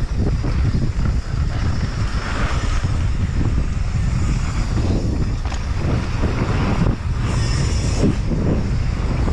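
Wind buffeting the camera microphone on a fast mountain bike descent, over the rumble of knobby tyres on a loose dirt trail and small clicks and rattles from the bike. A brief brighter hiss comes near the end.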